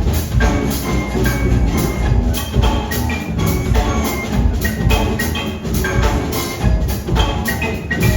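Live rock band playing an instrumental passage: a busy, steady drum beat over heavy bass, with short bright pitched notes on top.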